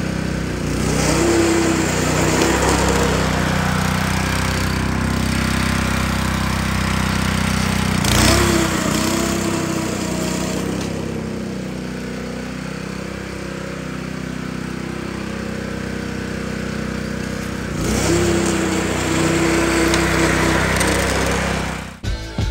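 Honda GX120 single-cylinder four-stroke engine running steadily on a 20-inch, 7-blade California Trimmer reel mower while mowing. A higher whine comes in over the engine three times: about a second in, around eight seconds and near eighteen seconds. The sound cuts off near the end.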